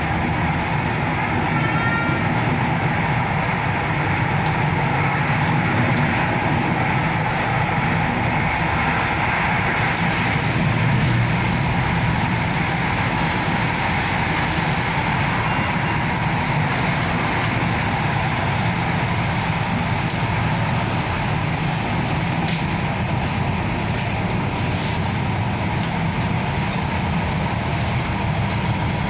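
Tyne and Wear Metro train running along the line, heard from inside the carriage: a steady noise of wheels on rails and running gear, with a few faint short squeals about a second or two in.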